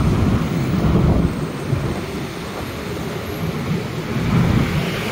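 Wind rumbling on the microphone as the bicycle rides along, mixed with the running noise of the cars and motorbikes in the traffic around it.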